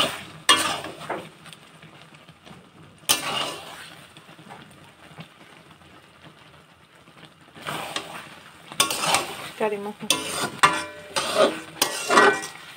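A spatula stirring and scraping a thick, sticky jujube (ber) pickle around a metal pan while the contents sizzle. There are a few scrapes at first, a quieter stretch in the middle, then busier scraping over the last few seconds.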